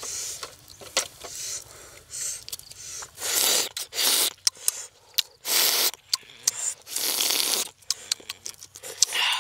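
Eggshell being cracked and peeled by hand close up: four short rasping, crackling rubs in the middle stretch, with small clicks and taps between them.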